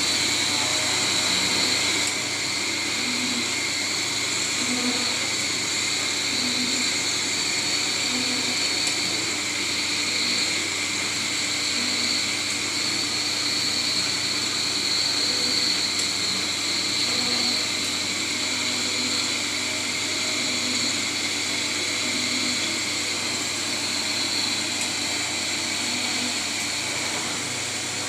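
CNC boring machine running steadily while drilling furniture panels: a constant high whine with an airy rush, and a small repeating pulse about every two seconds.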